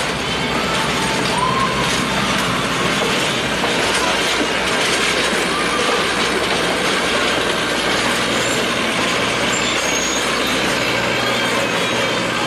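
Streamlined passenger cars of a diesel-hauled excursion train rolling slowly past, a steady rumble of wheels on rail with a low steady hum underneath. A few short, faint squeals come through in the first couple of seconds.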